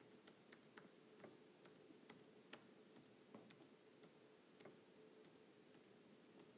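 Near silence: faint room tone with a low steady hum and faint, irregular ticks, about two or three a second.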